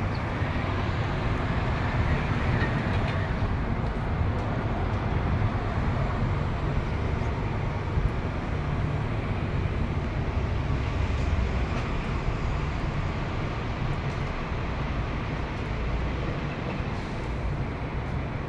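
City street traffic: a steady rumble of passing trucks, buses and cars.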